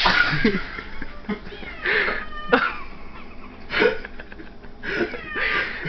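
A rushing scrape of a cat's fur sliding on a vinyl floor as it spins, dying away in the first half second, then an orange tabby cat giving several short cries.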